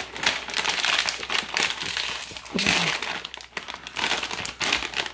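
A bag of kettle-cooked potato chips crinkling loudly in uneven bursts as it is handled and pulled open.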